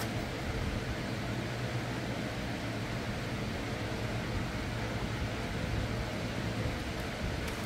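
Steady fan-like ventilation noise: an even whoosh over a low hum, unchanging throughout.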